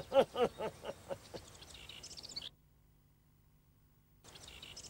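A cartoon hare's voice laughing, a quick run of ha-ha syllables that fades away about a second in. Faint bird chirps follow, then a short gap of silence before faint birdsong returns near the end.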